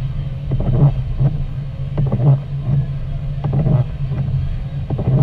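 Car cabin noise while driving on a wet road: steady engine and road hum with a repeating pulse about three times a second.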